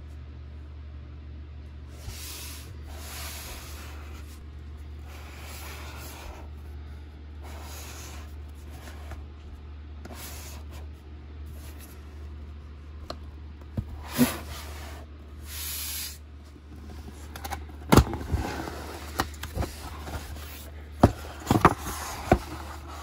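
Cardboard box being handled and opened: soft sliding and rubbing swishes, then a run of sharp knocks and taps from about two-thirds of the way in as the lid is lifted. A steady low hum lies underneath throughout.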